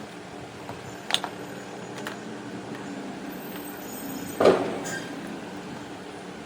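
Small clicks and one louder knock, as of tools and hard parts being handled on a workbench, over a steady low hum.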